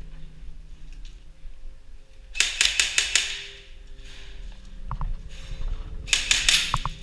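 Airsoft gun firing two short bursts of rapid shots, about two and a half seconds in and again near six seconds, with a couple of single clicks between.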